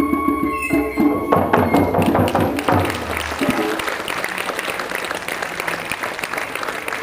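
A small folk band's tin whistle and acoustic guitar play the closing bars of a tune, ending with a few final struck chords about halfway through. A crowd then applauds steadily.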